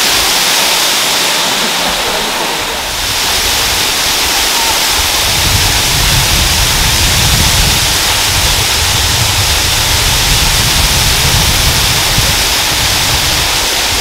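Loud, steady rush of a waterfall pouring onto rocks. A deeper low rumble fills in under it about five seconds in.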